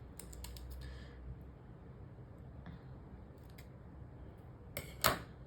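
Scissors snipping sticker paper: a few light clicks in the first second, then two sharp snips close together near the end, the loudest sounds here.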